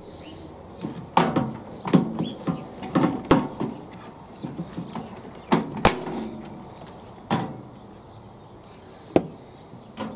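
Irregular knocks and clicks of plastic and sheet metal as a microwave oven's cooling fan motor is worked free of its clips and lifted out of the chassis, the sharpest knock about six seconds in.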